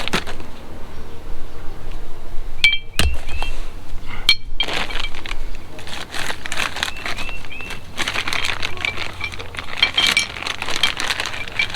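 Parts and packaging being handled: a string of clinks, knocks and rustles as new control arm bushings are unwrapped and set down.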